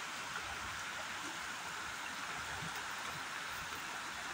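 Steady rush of flowing water from a small river.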